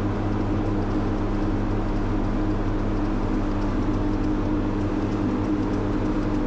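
An electric motor, such as a shop power tool's, running steadily with a constant hum and hiss.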